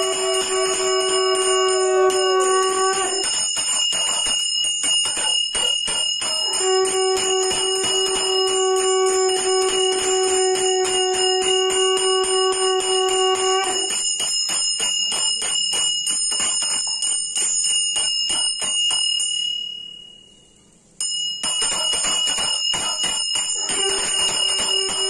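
A puja hand bell rung rapidly and continuously, with a conch shell blown in long steady notes: about three seconds at the start, one of about seven seconds in the middle, and again near the end. The sound cuts out for about a second around twenty seconds in.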